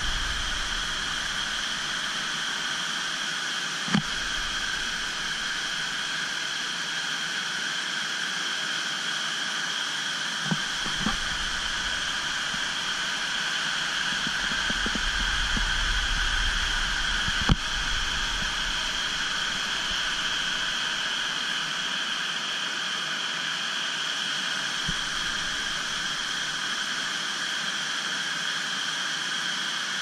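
Waterfall cascades rushing steadily, with a few brief knocks.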